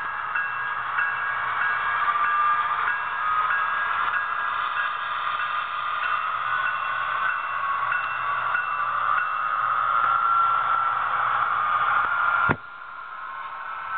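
Sound decoder of an HO scale Union Pacific SD70ACe model locomotive playing a diesel idle through its small speaker: a steady, tinny hiss with faint tones. It drops sharply with a click about twelve and a half seconds in, then carries on quieter.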